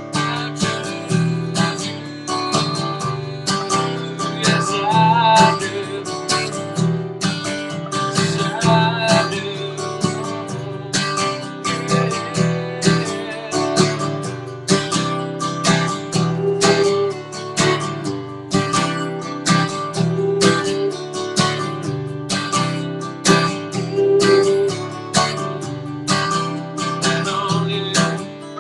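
Acoustic guitar strummed in a steady rhythm, with a man singing over it at times.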